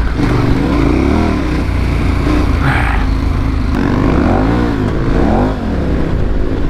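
Big adventure motorcycle's engine running under way on a dirt track. The revs rise and fall several times, twice in quick swells about four to five seconds in, over a steady rush of wind.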